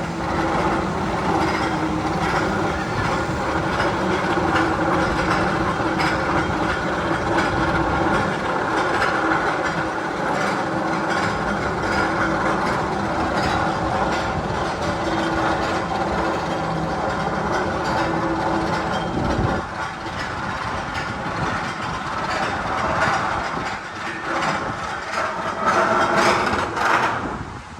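The train of the Magnum XL-200, a steel roller coaster, running on its track with continuous mechanical clattering and clacking. It eases and turns more uneven about two-thirds of the way through.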